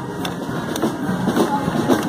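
Busy crowd along a parade route: many mingled voices and footsteps, with scattered sharp hits.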